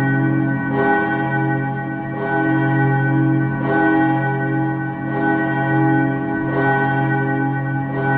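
Steel church bell ringing, its clapper striking about every one and a half seconds, six strokes in all, each ringing on with a long hum into the next.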